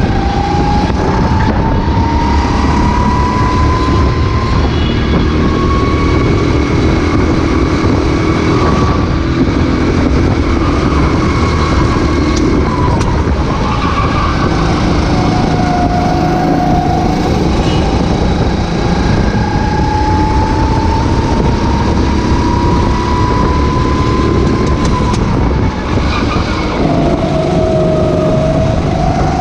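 Two-stroke racing kart engine heard from an onboard camera. Its pitch climbs steadily through long stretches of acceleration and drops back twice as the kart slows for corners.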